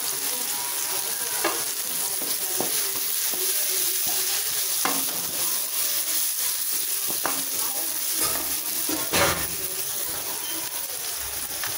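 Chopped onions and carrots frying in oil in a pan with a steady sizzle, stirred with a spoon that knocks and scrapes against the pan a handful of times.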